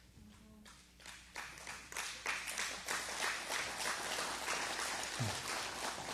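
Audience applauding: scattered claps about a second in that swell within a second into a full, steady round of clapping.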